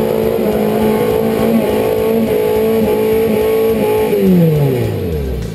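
Small 4x4's engine held at high revs under load, its pitch wavering and briefly dipping, then falling steadily away over the last second or so as the throttle is let off.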